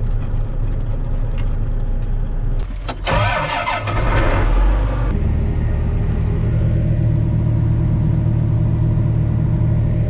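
Diesel engines running, heard from inside a semi truck cab and a John Deere tractor cab. About three seconds in there is a burst of rushing hiss. About halfway through, the sound changes sharply to a steadier, stronger low engine drone.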